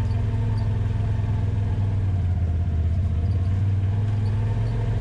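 Side-by-side UTV engine running steadily at an even, low speed during a slow trail ride, with a strong low hum.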